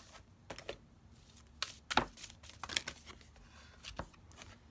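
Oracle cards being handled and drawn from the deck: a scatter of short taps, slides and clicks, the loudest about two seconds in.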